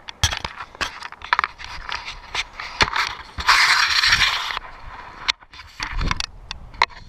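Hiking footsteps crunching and scraping on snow in an irregular pattern, with one longer scraping hiss about halfway through.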